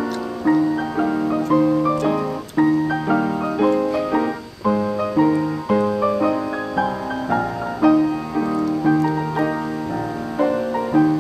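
Solo piano music, with notes struck about twice a second and left to ring.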